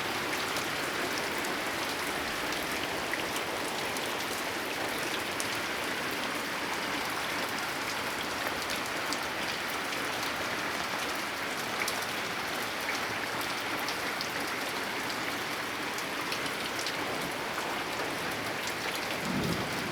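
Heavy rain falling on a tin roof: a steady hiss dotted with sharp drop taps.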